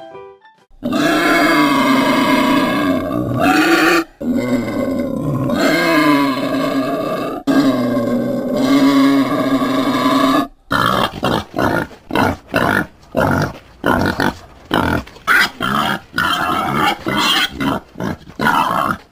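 Warthog calls: three long, drawn-out pitched calls, then a rapid series of short grunts at about two to three a second.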